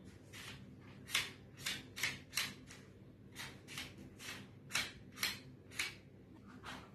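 Short plastic scrapes and clicks, about a dozen at irregular spacing, as tiles are pushed around a Rubik's Race sliding-tile puzzle, over a faint steady low hum.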